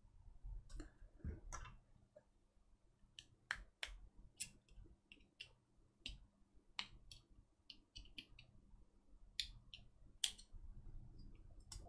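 Faint, irregular clicks and small scrapes as a thin metal pry blade works along the seam of a Miniware TS100 soldering iron's case to open it.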